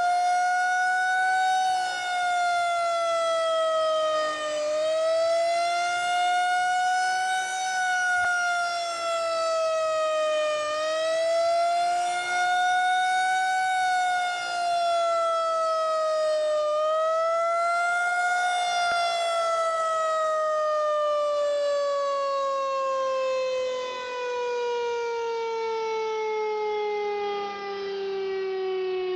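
Federal Signal 2001-130 electromechanical rotating siren sounding the attack signal: its tone rises and falls in slow cycles of about six seconds, then, about two-thirds of the way through, winds down in one long falling tone.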